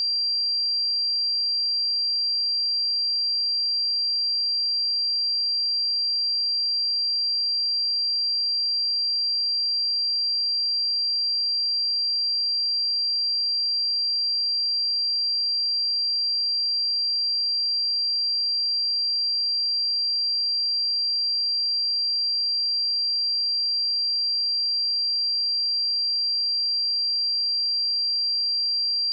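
A pure 4734 Hz sine-wave test tone, one steady high-pitched note held at constant loudness.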